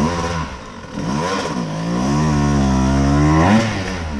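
Dirt bike engine revving up and down under load on a steep rock climb, the pitch rising and falling several times with a brief drop about half a second in.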